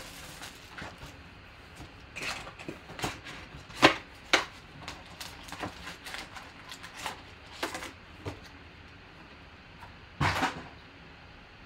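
Hands tearing the plastic wrap off a cardboard trading-card box and opening it: scattered crinkles, taps and scrapes of plastic and card. There is a sharp tap about four seconds in and a longer rustle near the end.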